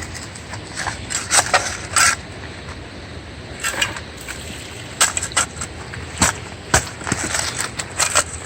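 Rocks and gravel knocking and scraping as a rocky streambed is dug for gold, in irregular clacks with a few louder strikes.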